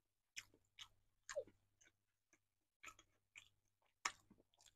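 Close-miked chewing of a mouthful of soft casserole: quiet, irregular wet smacks and clicks, the sharpest about four seconds in.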